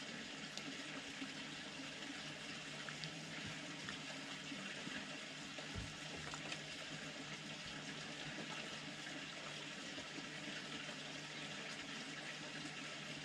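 Red fox eating from a metal tray: faint clicks and smacks of chewing over a steady hiss and low hum.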